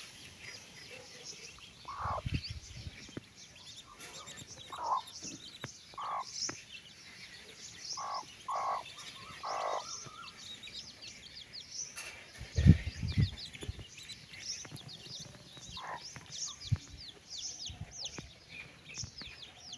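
Chicks peeping: many short, high, falling calls that grow denser toward the end, with a hen's lower clucking calls coming every second or two in the first half. One loud low thump about two-thirds of the way in.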